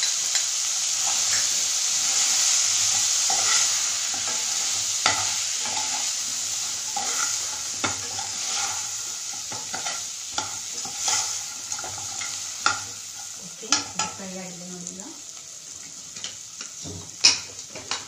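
Drumstick pieces, tomato and spices frying in oil in a pot, sizzling steadily while a ladle stirs them, with sharp clinks of the ladle against the pot. The sizzle slowly fades, and the clinks come more often in the second half.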